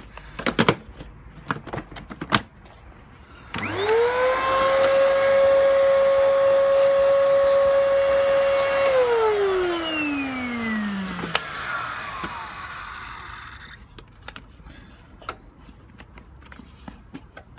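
Hoover Curve bagless canister vacuum cleaner switched on, its motor whining up to speed and running steadily for about five seconds, then switched off and spinning down with a falling whine. A few handling clicks come before it starts. The owner suspects badly blocked filters, as it gives almost no suction.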